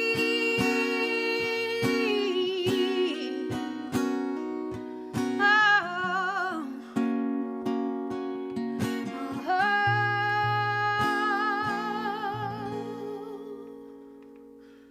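Acoustic guitar strummed under a woman's wordless sung notes, held with vibrato, closing out a song. The final chord rings and fades away over the last few seconds.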